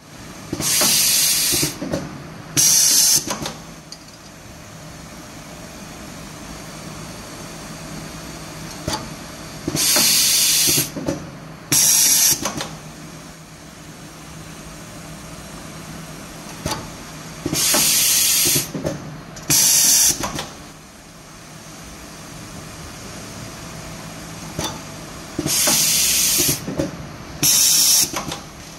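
Heat-shrink tube inserting and baking machine cycling: a long hiss of air followed by a shorter one, the pair repeating about every eight seconds, four times, over a steady machine hum with light clicks.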